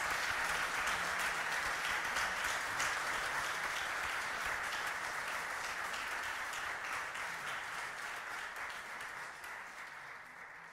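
Applause, many hands clapping, fading out slowly over the last few seconds.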